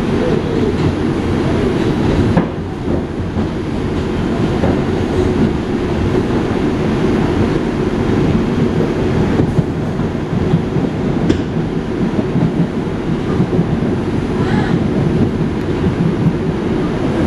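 R142 subway car running at speed, heard from inside the car: a steady low rumble of wheels on rail, with a few sharp clicks.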